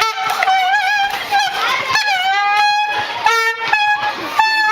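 A shrill, held tone that wobbles and shifts pitch a few times: a tune being played badly.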